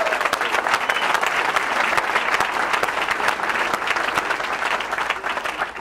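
Audience applauding: dense clapping from a large crowd that eases off near the end.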